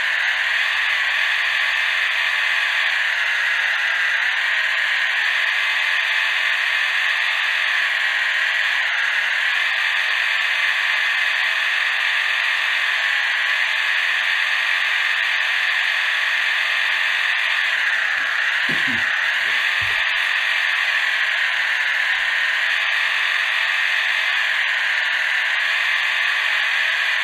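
Stock electric motor and gearbox of a 1:32 Orlandoo Hunter RC crawler whining steadily as it drives. The pitch dips briefly a couple of times.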